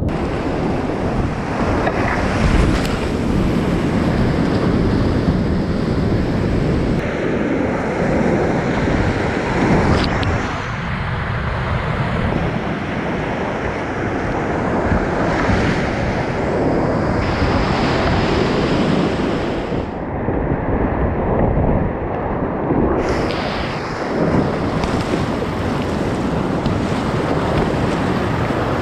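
Whitewater rapids rushing and churning loudly right around a kayak, with wind buffeting the microphone. There is a single sharp tap about ten seconds in.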